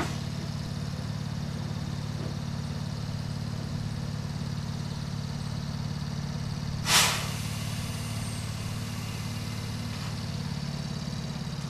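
Hokuriku Railway 7000 series electric train (ex-Tokyu 7000) standing at the platform with a steady low hum from its equipment. About seven seconds in there is one short, sharp hiss of released compressed air.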